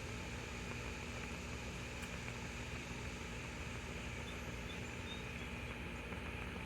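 Alcohol stove burning under a titanium pot of water that is heating toward the boil, giving a steady hiss with a faint low hum. A few faint high chirps come about four seconds in.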